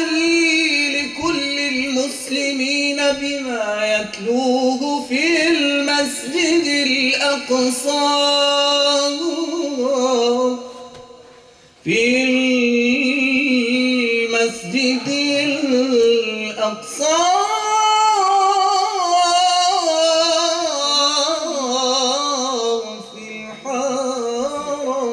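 A man sings an Islamic nasheed solo into a microphone, in long, ornamented held notes that slide between pitches. The voice fades out about ten seconds in and starts again a second or so later.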